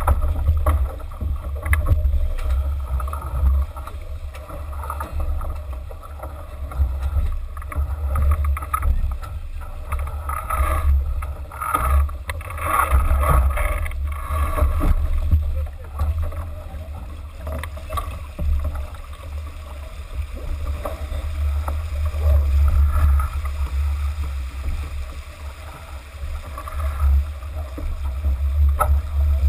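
Wind gusting against the microphone in a low, uneven rumble, over the rush and splash of water along the hull of a J/80 sailboat moving under sail.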